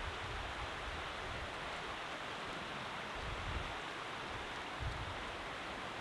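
Steady rushing of a rocky mountain river running over small cascades, with a couple of brief low rumbles of wind on the microphone.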